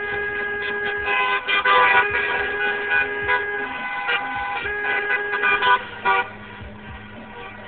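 Several car horns honking together: long held horn notes with many short toots over them, stopping about six seconds in.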